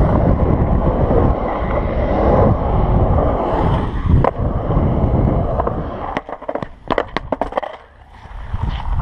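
Skateboard wheels rolling over the concrete of a skate bowl, a steady rumble with one sharp knock about four seconds in. Partway through the rolling dies away into a quick run of sharp clacks and knocks.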